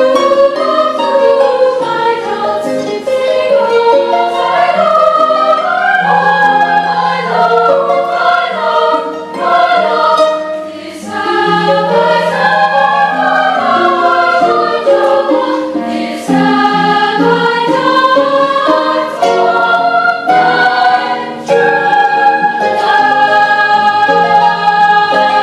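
Girls' choir singing in several parts, the voices moving together in phrases, then holding a long chord near the end.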